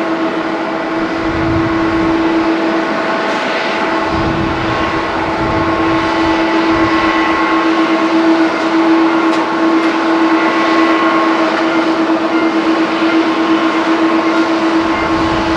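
Jet engines of a taxiing Boeing 777-200ER at low power: a steady drone with a constant whining tone that holds one pitch, over a broad rushing noise.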